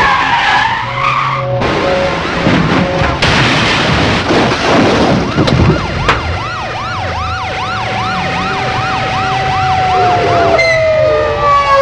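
Car-chase sound: tyres screech at the start, then a loud stretch of car and impact noise. About halfway a police siren starts, with a rapid wail about three times a second over a steady tone that slides down in pitch near the end.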